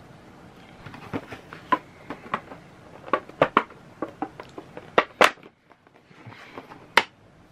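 Irregular clicks, taps and light crinkles from hands unpacking and handling a product's packaging and plastic parts.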